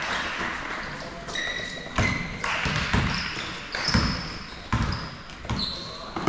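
Basketball bouncing on a gym floor, thumps about once a second, with short high sneaker squeaks between them.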